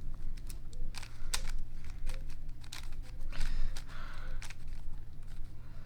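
Plastic 3x3 Rubik's cube layers being turned by hand: irregular quick clicks and rattles, with a longer scraping rasp a little past the middle.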